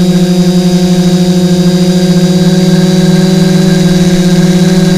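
Quadcopter's four brushless motors spinning 10-inch propellers, heard through the onboard camera: a loud, steady buzz with a faint high whine, holding an even pitch in flight.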